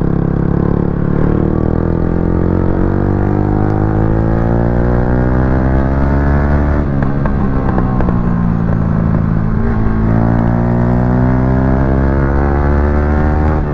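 Yamaha R15 V3's single-cylinder engine running through a loud aftermarket exhaust while the bike accelerates. Its pitch climbs steadily, falls back about seven seconds in with a short crackle, then climbs again.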